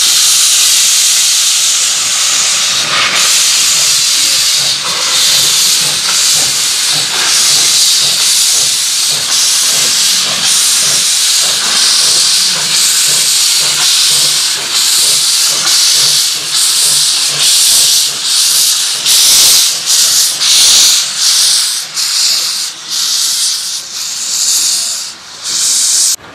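Lancashire & Yorkshire Railway Class 21 'Pug' 0-4-0 saddle tank steam locomotive working a short freight train: loud hissing of steam from its open cylinder drain cocks, pulsing with each exhaust beat. The beats are rhythmic throughout and become more widely spaced and distinct near the end.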